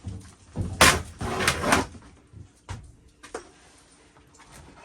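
A burst of knocking and scraping about a second in, then a couple of single knocks.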